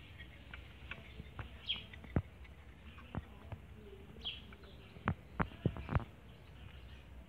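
Handling noise of a ribbed serpentine belt being fed around the engine pulleys by hand: light clicks and taps, one sharp knock about two seconds in and a quick run of four sharp taps near the end. A bird chirps twice in the background.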